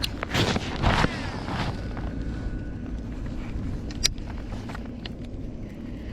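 Steady low rumble of wind buffeting the microphone, with a loud rushing noise lasting about a second near the start and a single sharp click about four seconds in.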